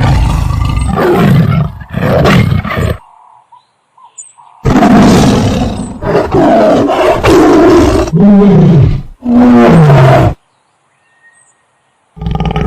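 Tiger roaring and growling: a run of loud, deep roars broken by short pauses.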